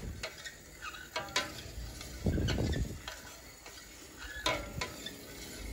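Metal spoon stirring a fruit-juice pudding mixture as it heats in a stainless steel saucepan, with irregular scrapes and clinks against the pan.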